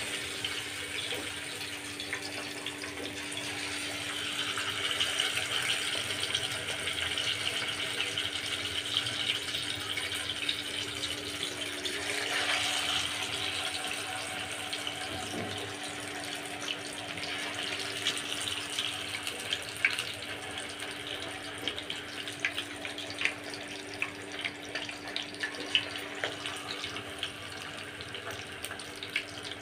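Masala-coated rohu fish pieces frying in hot oil in a pan: a steady sizzle dotted with sharp crackling pops. It swells about four seconds in and again about twelve seconds in.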